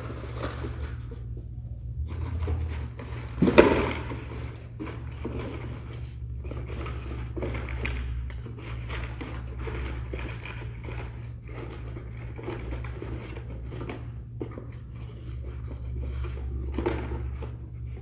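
A dog nosing and rummaging through a cardboard box of empty cardboard food boxes and toilet paper rolls, hunting hidden kibble: continuous cardboard rustling and scraping, with one sharp knock about three and a half seconds in.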